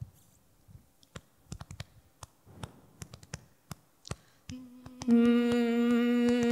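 Scattered sharp clicks, a few a second, then about four and a half seconds in a woman starts humming one steady low note into the microphone, which jumps louder half a second later and holds.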